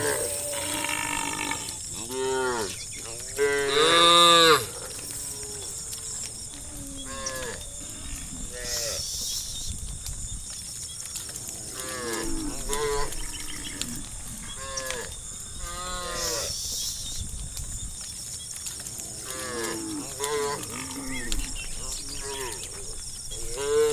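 A herd of cattle mooing, one call after another with some overlapping, each moo rising and falling in pitch. The loudest, longest moo comes about four seconds in.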